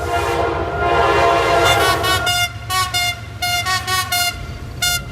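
Passing train's horn held in one long chord of several notes, then a quick string of about eight short toots, over the low rumble of the train running by.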